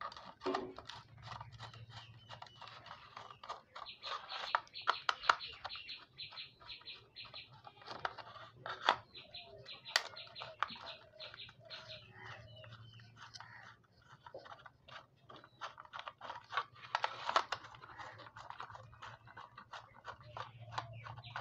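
Small screwdriver turning screws out of a plastic rechargeable emergency torch housing: a long run of quick clicks, creaks and scrapes from the screws and the plastic body being handled.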